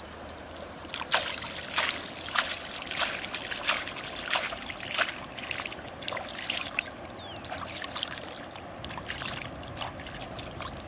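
Hands splashing and swishing in shallow river water at the bank: a run of sharp, irregular splashes in the first half, then softer dabbling and trickling.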